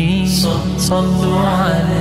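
Background music: a man's voice singing long, held notes that slide from one pitch to the next, over a low steady drone.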